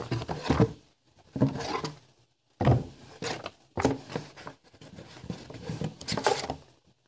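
Glossy paper catalogs and leaflets being shuffled and lifted in a cardboard box: a series of short rustles and soft knocks with brief pauses between them.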